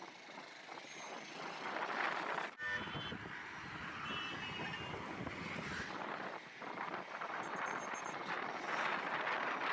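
City road traffic heard from a moving two-wheeler: a steady rush of engine, tyre and wind noise from the ride and passing vehicles, with a few brief high beeps. The sound changes abruptly about two and a half seconds in, where clips are spliced.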